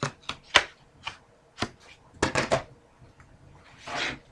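Trading cards being handled on a table: a run of short sharp taps and clicks, then a brief sliding rub near the end.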